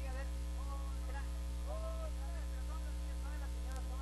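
Loud steady electrical mains hum, with a person's voice over the stage loudspeakers in short bending phrases and one drawn-out sound about halfway through.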